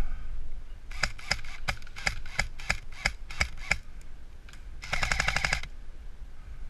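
Airsoft gun firing: a string of quick single shots, about five a second, for nearly three seconds, then a short full-auto burst of under a second.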